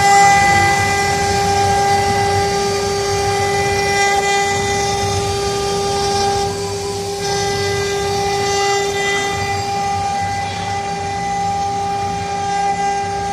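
Air-cooled spindles of a double-head wood CNC router running with a steady high whine, over an airy hiss that swells and fades every few seconds.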